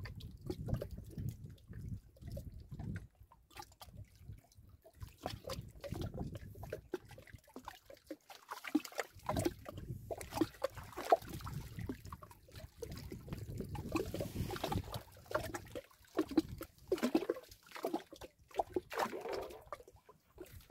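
Water splashing and trickling close by, with scattered knocks and handling noise, as a hooked piau is brought out of the water into a small boat.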